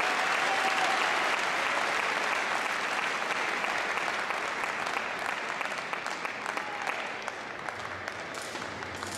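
Spectators applauding, the clapping fading away over the last few seconds.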